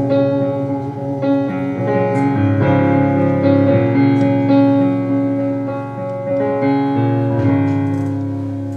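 Live instrumental close of a slow ballad: a stage piano plays sustained chords with a violin holding notes over them, the music dying away near the end.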